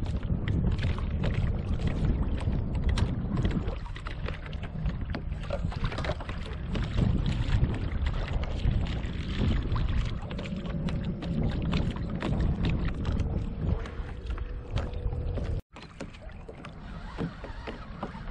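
Wind buffeting the microphone and small waves slapping against a moving kayak's hull on choppy water, with a faint steady hum in the middle; the sound cuts out for an instant near the end.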